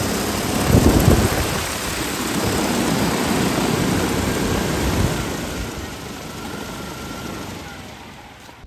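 DJI Agras T40 agricultural spray drone's rotors whirring as it lands, with a louder gust of rotor wash hitting the microphone about a second in. After touchdown the rotors spin down and the sound fades away over the last few seconds.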